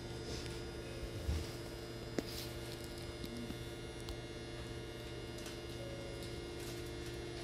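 Steady electrical hum inside a stationary Hankyu train car with its doors open, with a low thump about a second in and a short sharp click about two seconds in.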